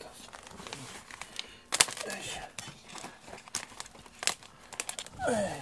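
Bamboo-slat rug being handled and laid on the floor: the slats click and clack with a rustle, the sharpest clack about two seconds in. A brief voice sounds near the end.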